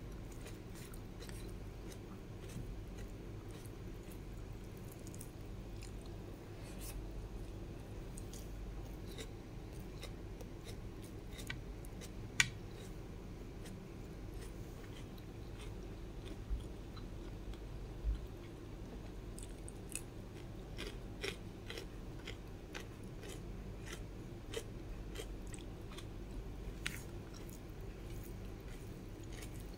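Close-miked chewing and eating mouth sounds: scattered short wet clicks and smacks, the loudest about twelve seconds in, over a low steady hum.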